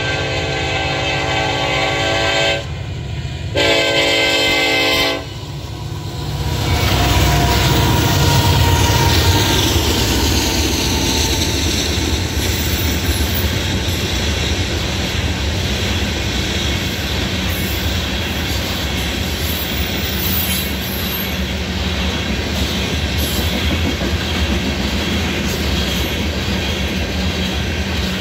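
A Union Pacific freight train's air horn sounds a blast that breaks off about two and a half seconds in, then a shorter one. From about six seconds in, the train runs through the crossing at speed: loaded rock hopper cars roll by with a steady rumble and the clickety-clack of the wheels over the rail joints.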